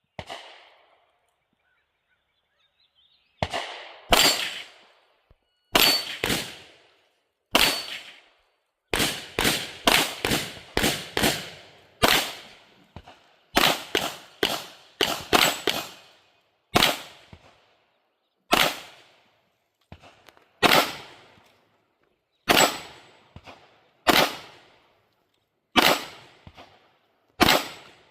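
Canik SFX Rival 9mm pistol being fired, about two dozen shots beginning a few seconds in. Some come singly a second or two apart, others in quick strings of several shots a second.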